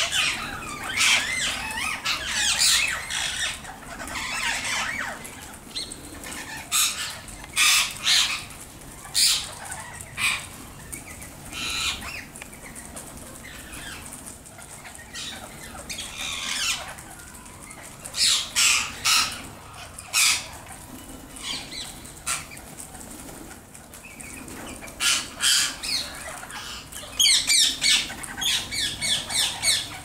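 A flock of rose-ringed parakeets screeching in clusters of short, shrill calls, with a rapid string of calls near the end and wings flapping as birds fly in and out.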